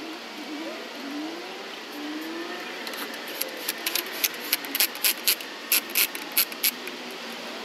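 A run of about a dozen sharp metallic clicks at a car's wheel during lug-nut work, irregularly spaced, starting about three seconds in, over a steady street hum.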